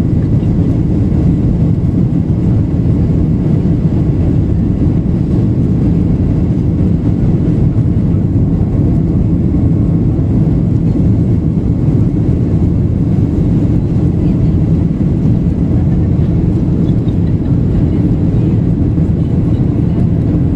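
Steady cabin noise inside a Boeing 737-800 climbing after takeoff: an even, low rush of airflow and its CFM56 jet engines, with faint steady whining tones above it.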